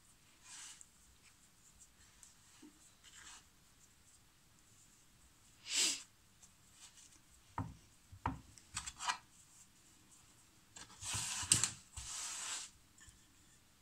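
Hands sealing wheat dough around potato stuffing and pressing it on a floured wooden board: soft, scattered rubbing and rustling with a few light taps, the loudest rubs about six seconds in and again near the end.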